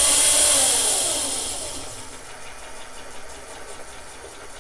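Razor MX650 electric dirt bike's motor and chain drive spinning up the raised rear wheel on a bench test of the new controller and battery pack. It is loudest at the start, a whine that climbs sharply as the throttle is twisted. The pitch then falls over about two seconds, and the drive keeps running more quietly after that.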